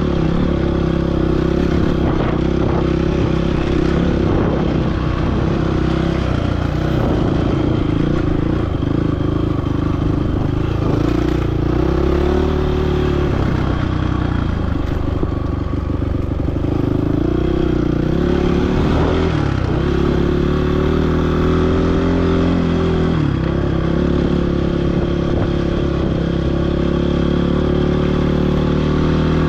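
Motorcycle engine running under way, its revs rising and falling several times as the rider works the throttle, with clear dips in the engine note in the middle and again later on.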